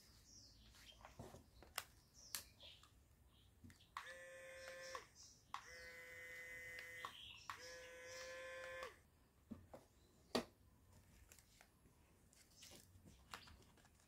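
Small geared DC motor whining at a steady pitch in three short runs of about a second each, working the toy air conditioner's opening and closing air outlet. Light clicks of handling around it, with one sharper click after the motor stops.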